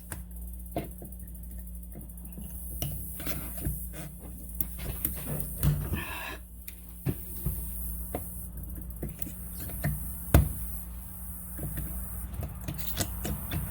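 Scattered small clicks, taps and knocks of hand work on metal and plastic parts, with a short scrape near the middle and one sharp, louder knock about ten seconds in, over a steady low hum.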